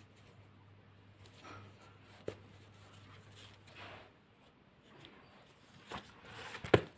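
Soft rustling and scraping of chunky T-shirt yarn worked with a plastic crochet hook, with a small click a little over two seconds in. Near the end the crocheted bag is lifted and handled, with louder rustling and a sharp click, the loudest sound.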